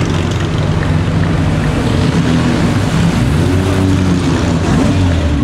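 Vintage straight-six sports car engines running at low speed as they pass close by one after another: first a 1947 Maserati A6 GCS with its 2-litre straight-six, then a 1952 Jaguar XK 120 with its 3.4-litre straight-six. The engine note rises briefly a little past halfway through.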